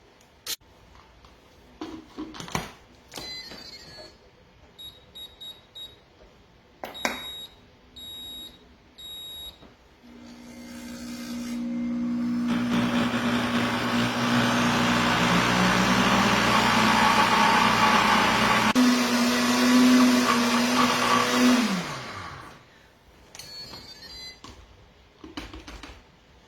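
A few short beeps and clicks, then the Pampered Chef Deluxe Cooking Blender's motor spins up on its grind setting and runs loudly for about ten seconds, pulverizing granulated sugar into powdered sugar, before winding down with a falling pitch.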